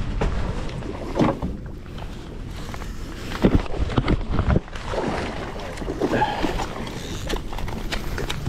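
Steady low rumble of the boat's engine mixed with wind on the microphone, broken by several sharp knocks and handling bumps about a second, three and a half seconds and four to four and a half seconds in.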